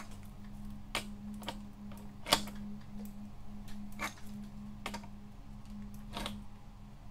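Metal clicks of a wrench turning a crank arm extractor threaded into a bicycle crank arm, working the arm off a square-taper bottom bracket spindle. About six sharp, irregular clicks, the loudest a little past two seconds in, over a steady low hum.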